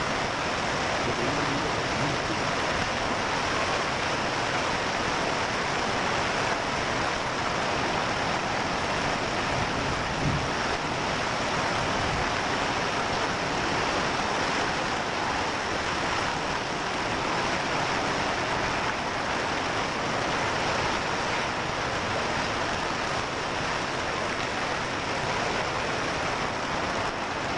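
Heavy rain mixed with hail pouring down: a loud, steady, dense hiss of countless drops and hailstones striking the ground and surfaces.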